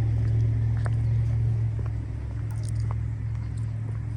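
Steady low machine hum, like a large engine or motor running, getting a little quieter toward the end, with a few faint ticks over it.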